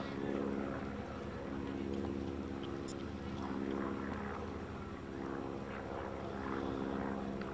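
A steady low motor hum, with faint voices in the background.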